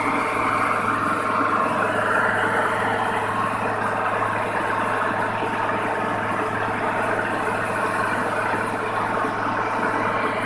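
Skyroad rice combine harvester running steadily, its diesel engine humming while the unloading auger pours threshed paddy out of the spout onto a pile.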